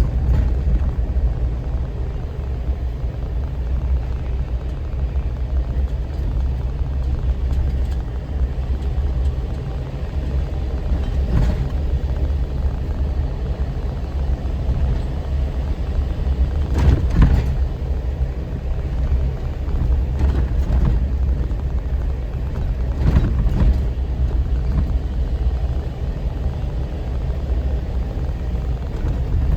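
Vehicle driving on a paved road: a steady low rumble of engine and tyres, with a few brief knocks or rattles.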